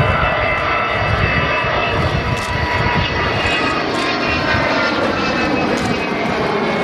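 Avro Vulcan bomber's four Rolls-Royce Olympus turbojets running loud overhead in a display pass. A deep rumble carries a faint whine above it, and the rumble eases a little near the end.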